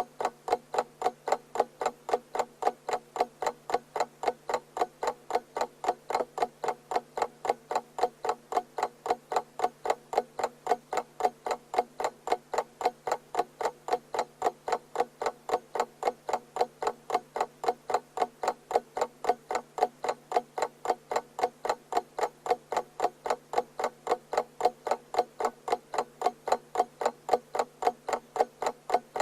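Clock ticking at a steady, even pace, each tick a short, sharp click.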